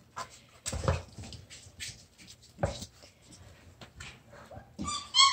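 Puppy whining near the end: a few high-pitched cries that rise and fall. Before it, scattered soft knocks and clicks as puppies move about on a plastic wobble board, licking peanut butter off its centre.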